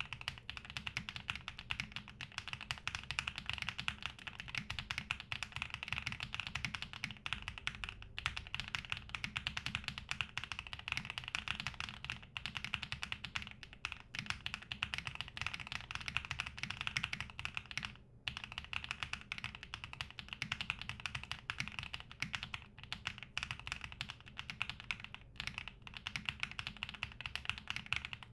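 Continuous fast typing on a TB65-F mechanical keyboard with HMX Bamboo switches, an aluminum case and foam inside: a dense run of keystroke clicks, with a short pause about two-thirds of the way through.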